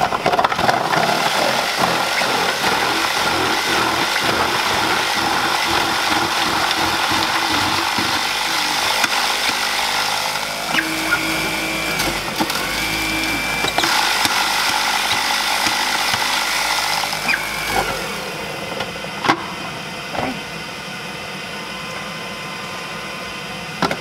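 Goodnature M-1 cold-press juicer's grinder running and shredding carrots and apple, a loud continuous grinding that shifts as pieces go through. The grinding drops away about three-quarters of the way through, leaving a few light knocks.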